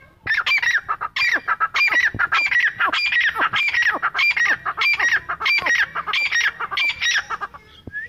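Grey francolin (teetar) calling: a fast, rhythmic run of loud, harsh notes at about two a second, each dropping in pitch. It stops shortly before the end.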